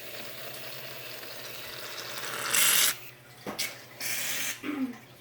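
Aerosol shaving cream can hissing as foam is sprayed out: a steady hiss, then a louder short spurt about two and a half seconds in and another around four seconds in.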